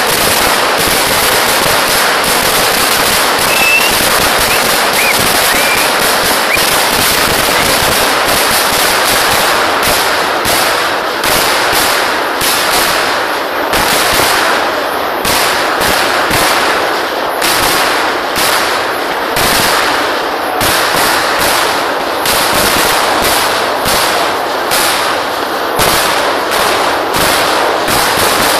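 Festival fireworks going off in a dense, rapid rattle of firecracker bangs, loud throughout. From about ten seconds in, separate bangs stand out several times a second.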